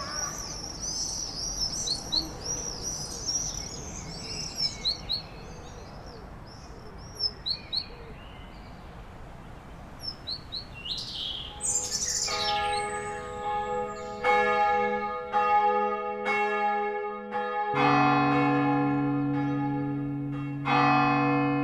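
Small birds chirping in short repeated calls over a steady background hiss. About twelve seconds in, church bells start ringing, struck roughly once a second with each strike ringing on, and a deeper bell humming beneath them from about eighteen seconds in.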